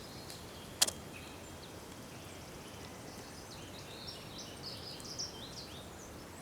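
Quiet outdoor ambience with a steady low background rumble, small birds chirping in short high notes in the second half, and a single sharp click a little under a second in.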